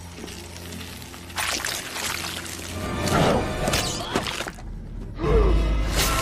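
Dark film-score music: a low steady drone, then noisy sound effects from about a second and a half in, and a loud deep boom a little after five seconds.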